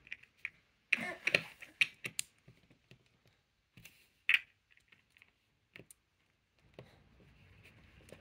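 Small plastic Lego pieces clicking and clacking as a small build is handled and its parts are turned and repositioned. The clicks are irregular, with a quick cluster in the first couple of seconds and a few single clicks after.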